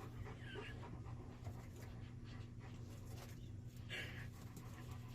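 A dog panting, with small irregular scratching and clicking noises over a steady low hum.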